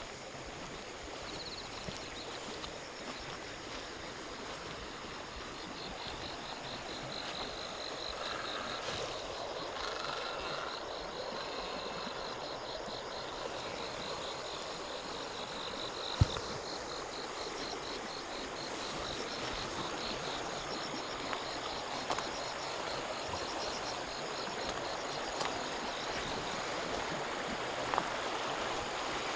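Steady rush of flowing river water, with a high, rapidly pulsing trill running through much of the middle, and a single sharp click about halfway through.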